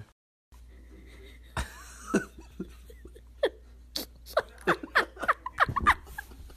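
A person laughing in a quick run of short bursts, about three a second, in the second half.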